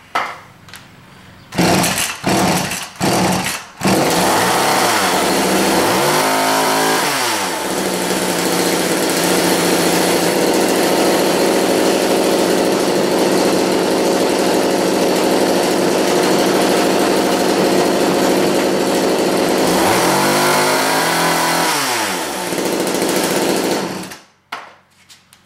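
McCulloch 310 two-stroke chainsaw, just fitted with a carburetor kit, being pull-started. It sputters a few times and then catches about four seconds in. It revs up, runs at high speed for a long stretch, drops back, and is switched off about 24 seconds in; the saw is running well on the rebuilt carb.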